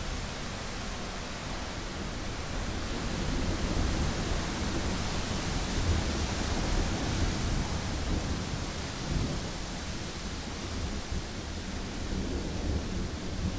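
Steady wind noise with low thunder rumbling underneath, swelling a little around the middle.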